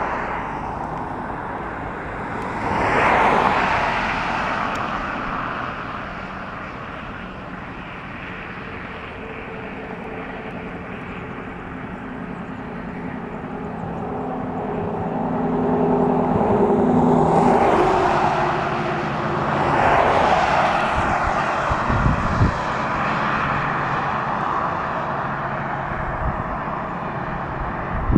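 Freight train's diesel locomotives, a BNSF SD70ACE leading an ET44C4, working at full throttle on approach, a continuous rumble that swells about three seconds in and again about two-thirds through. A chord of steady tones holds for about ten seconds and cuts off sharply just before the loudest swell.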